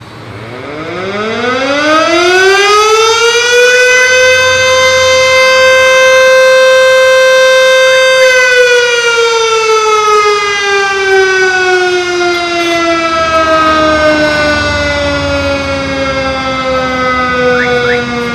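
Outdoor public warning siren winding up to a steady wail over about three seconds and holding for a few seconds. It then slowly winds down, falling in pitch.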